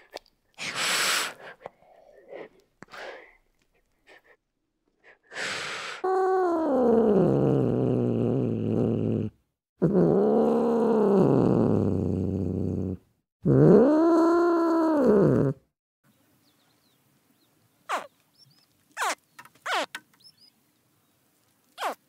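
A small wild cat gives three long, loud, drawn-out meowing calls. The first falls in pitch and the next two rise and then fall. Two short hisses come before the calls, and a few short high chirps come near the end.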